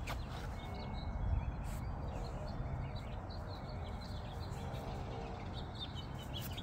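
Outdoor ambience: a steady low rumble with faint, scattered bird chirps over it.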